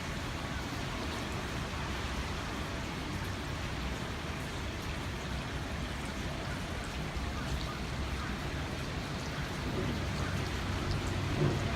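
Heavy rain pouring steadily, with a low rumble swelling near the end.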